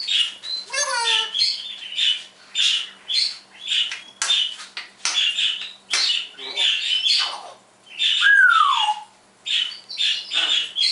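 African grey parrot calling in a quick string of short squawks and chirps, about two a second, with a stepped, falling whistle about a second in and a smooth falling whistle about eight seconds in.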